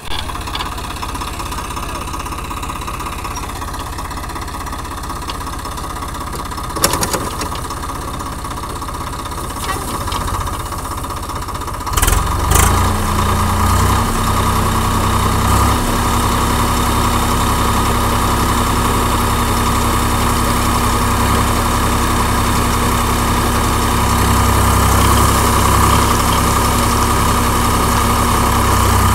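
Swaraj 855 FE 4WD tractor's three-cylinder diesel engine running steadily as it pulls a rotavator through field stubble. About twelve seconds in, the sound grows louder and a deeper steady hum sets in, with a couple of short knocks around then.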